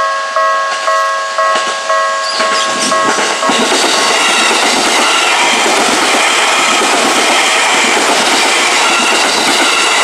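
Japanese level-crossing warning bell dinging in a steady rhythm, then from about three seconds in an Izukyu line electric train passing close through the crossing. Its steady rush of wheels on rails drowns out the bell.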